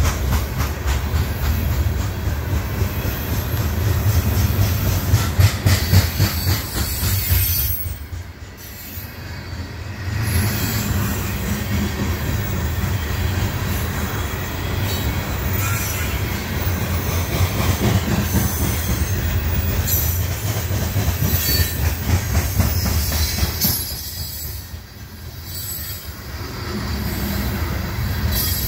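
A Canadian Pacific freight train's loaded coal and hopper cars rolling past close by, with a steady low rumble of steel wheels on the rails and rapid clicking over the rail joints. The sound dips briefly twice.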